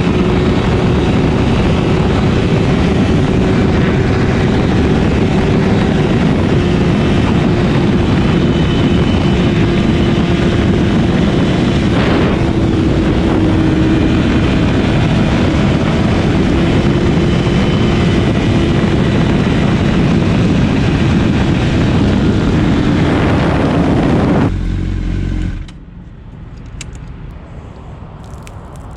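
Honda CBR1000RR inline-four engine running at steady, high revs under a heavy rushing noise while the sport bike is ridden at speed. Near the end the sound drops off sharply to a much quieter level.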